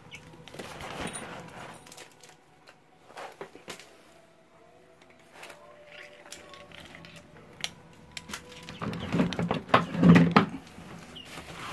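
Rustling of clothes and a plastic bag being shifted on a tile floor, with scattered light taps and clicks; the rustling and handling noise grow louder about nine seconds in.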